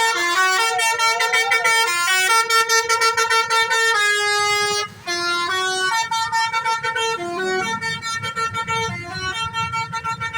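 Telolet bus horn, a multi-tone musical horn, playing a rapid tune of stepped notes, with a brief break about five seconds in. A low engine rumble comes in during the second half.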